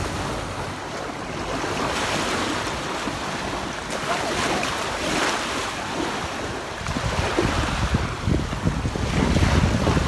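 Small sea waves breaking and washing up on a sandy shore, surging a few times, with wind buffeting the microphone and a low rumble growing stronger in the last few seconds.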